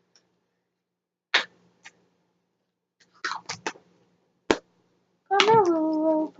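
Short squishy bursts of slime being handled, a sharp click about four and a half seconds in, then a girl's voice holding one long note near the end.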